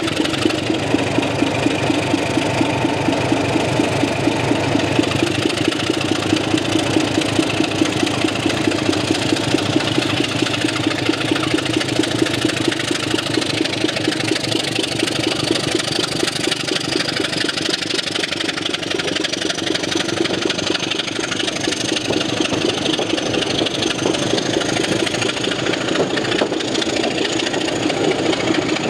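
Diesel locomotive engine working hard as it hauls a train of coaches away, with a regular pulsing beat about twice a second that eases in the second half. A faint high whine climbs slowly in pitch from about halfway.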